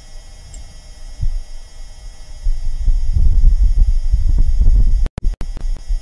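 Martian wind recorded by NASA's Perseverance rover microphone: a low, gusting rumble that swells about two and a half seconds in, cut by two brief dropouts near the end.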